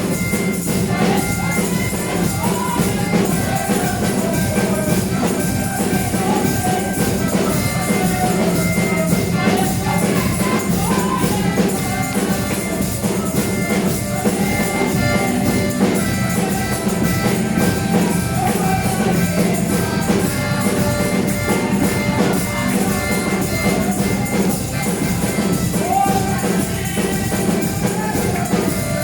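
Church praise music: tambourine and drums keep a steady, busy beat under singing voices and held instrument tones.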